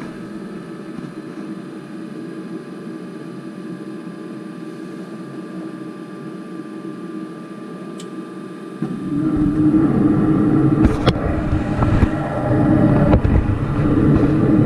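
Carrier Infinity propane furnace's draft inducer motor running with a steady hum while the hot surface igniter heats; about nine seconds in the burners light with a sudden, much louder rush of flame and low rumble. The furnace fires now that the birds blocking the flue have been cleared.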